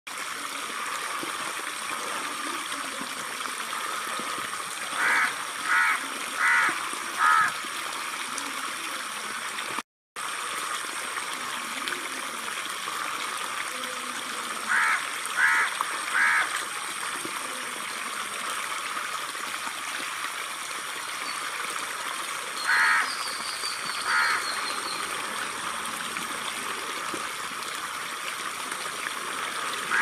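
Steady outdoor background hiss with three runs of short, evenly spaced animal calls, about two thirds of a second apart: four calls, then three, then two. The sound cuts out briefly about ten seconds in.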